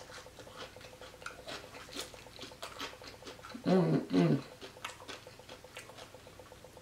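Close-up chewing of crunchy fried pork rinds (chicharrones): soft crunches and wet mouth clicks scattered throughout. A short two-syllable hum of voice comes about four seconds in.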